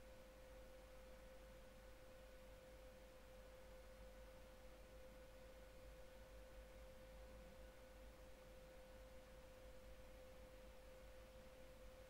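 Near silence: room tone with a faint, steady single-pitched hum over low hiss.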